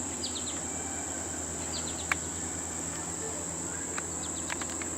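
Steady high-pitched insect trill, held without a break, with a few short faint chirps and small clicks over it.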